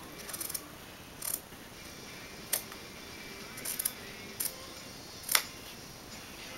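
Scissors snipping through thick denim along a jeans seam: a series of about six short, sharp cuts roughly a second apart, the loudest one near the end.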